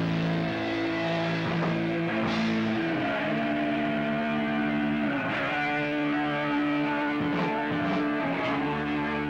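Punk rock band playing live: electric guitar chords ringing over bass guitar, the chord changing several times.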